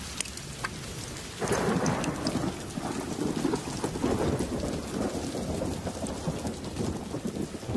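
Rain falling steadily during a thunderstorm, with a long roll of thunder that swells up about a second and a half in and keeps rumbling on.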